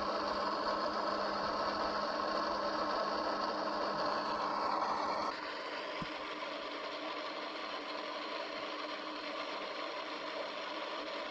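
Steady hiss of static with a faint hum from an EVP ghost-box device, run while listening for spirit voices. About five seconds in it drops a little in level and changes in tone.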